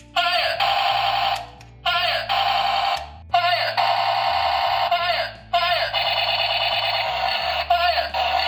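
Electronic sound effect of a battery-powered toy gun: a loud, warbling, siren-like buzz fired in four bursts, each opening with a sweep in pitch, over steady low background music.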